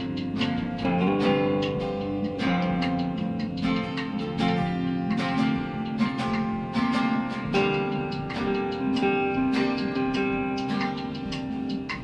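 Guitar being played: plucked notes and strummed chords, each ringing on.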